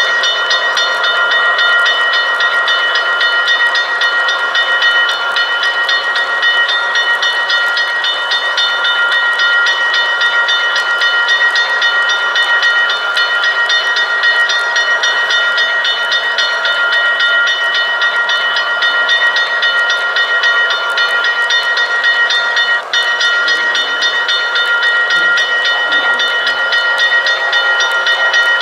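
Model railroad locomotives running on the layout, their onboard sound units playing a steady cluster of high tones over a fast, even ticking.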